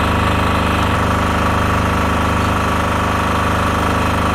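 An engine idling with a steady, even low drone.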